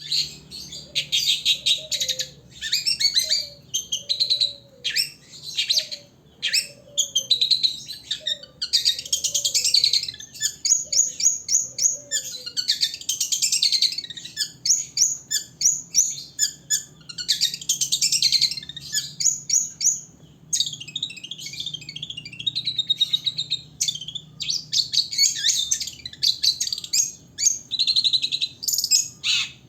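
Long-tailed shrike (cendet) singing a continuous chattering song of rapid, high-pitched chirps and trills with brief breaks.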